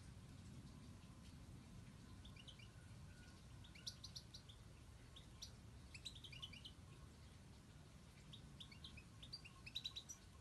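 European goldfinches calling: short, high twittering chirps in three brief bouts, the loudest near the end, faint against a quiet background.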